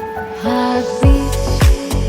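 Background music, an R&B-style song: a held keyboard chord, then deep bass-drum hits that drop in pitch come in about a second in, twice.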